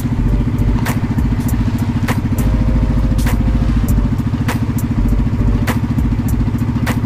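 Small motorboat engine running steadily underway, with a fast, even pulse. Sharp slaps come at uneven intervals, about one or two a second, as the hull meets the choppy water.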